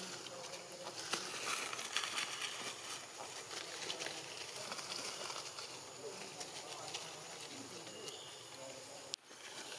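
Outdoor ambience: scattered faint crackles and rustles over a steady hiss. The sound drops out briefly with a sharp click near the end.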